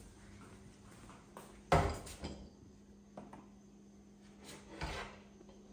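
A metal cooking pot with a glass lid being handled and set at a kitchen sink: one sharp knock a little under two seconds in, then a few fainter knocks and clinks, over a faint steady hum.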